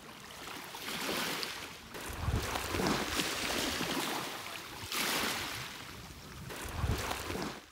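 Wind gusting across the microphone over gentle shallow water washing on tidal mudflats. The rush swells and fades in waves, with low buffets of wind about two and a half seconds in and again near the end.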